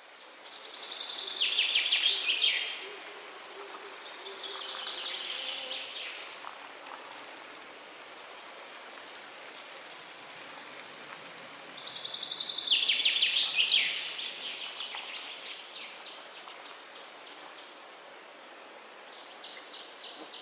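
A songbird singing about five short, fast trilled phrases that drop in pitch, spaced a few seconds apart, the loudest about two seconds in and near the middle. A steady high hiss runs underneath.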